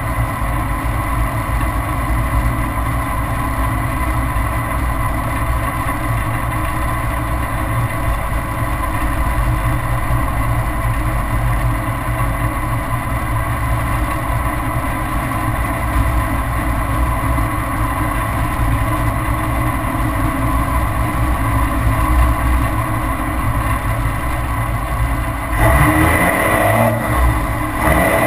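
Straight-piped 2002 Dodge Ram Cummins 5.9 L inline-six turbodiesel exhaust, heard from just beside the 4-inch straight pipe's tip as the truck cruises, a steady low rumble. Near the end the sound steps up louder, with the pitch rising and falling, as the truck gets on the throttle.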